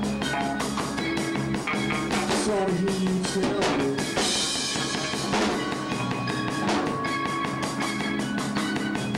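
A rock band playing live: electric guitar, bass guitar and drum kit with a steady beat, and a lead vocal singing over them.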